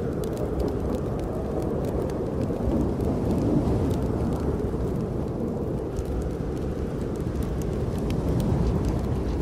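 Snowstorm wind blowing as a steady low rumble that swells and eases, with faint scattered crackles from a wood fire in a fireplace.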